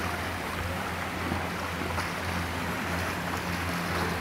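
Steady rush of water around an elephant wading through a pool, with a low steady hum and wind on the microphone underneath.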